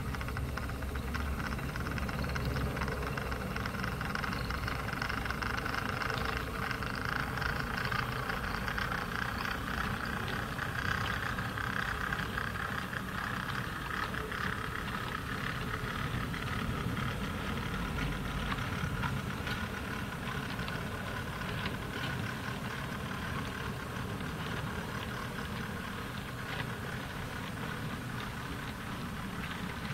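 Goods train of four-wheeled vans and wagons rolling steadily past: a continuous rattle of wheels on track with many small clicks, swelling a little about ten to fourteen seconds in.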